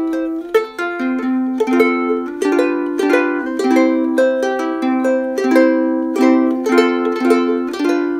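Ukulele played by hand: a steady run of plucked notes and chords, several a second, recorded through a Rode VideoMic Pro camera shotgun mic.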